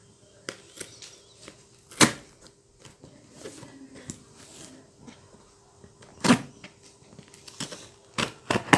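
Cardboard shipping box being handled and opened by hand: scattered sharp knocks and clicks, the loudest about two seconds in and again about six seconds in, then several quicker ones near the end.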